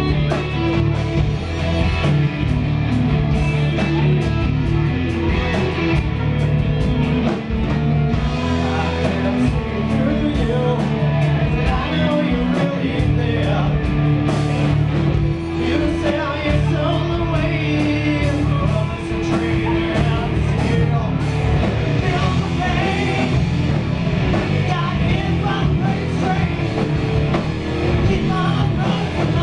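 Hard rock band playing live: distorted electric guitars, bass guitar and drum kit, with a man singing over them.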